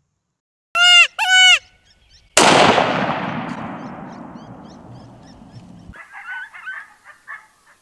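Two short yelping calls about a second in, then a single rifle shot whose report rolls away slowly over about three and a half seconds. Faint chirping calls follow near the end.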